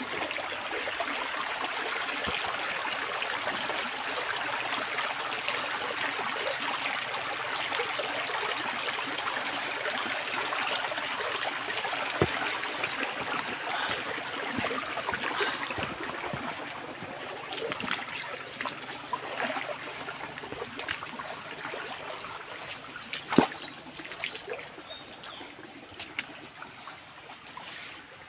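Shallow jungle creek running and trickling steadily, the water sound thinning after about the middle. Scattered sharp clicks and knocks sound over it, the loudest one past the three-quarter mark.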